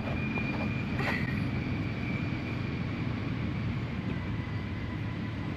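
A vehicle engine running steadily: a low, even hum, with a thin steady high-pitched whine above it.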